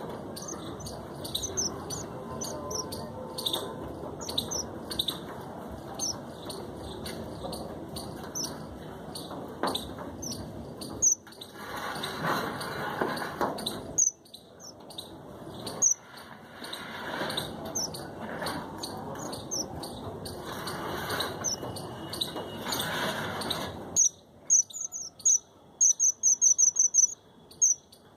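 Caged red avadavats (red munias) giving short, high-pitched chirps again and again over a steady background noise, with a quick run of chirps near the end.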